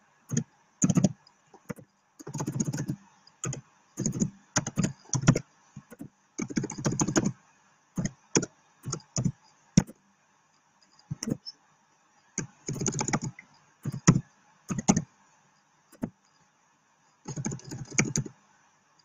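Typing on a computer keyboard: irregular clusters of key taps with short pauses between them.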